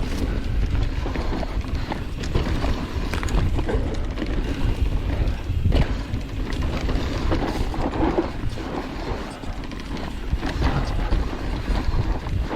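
Mountain bike rolling fast over a dirt trail: tyres on dirt and rocks, with the bike rattling and clattering over bumps and wind rumbling on the microphone.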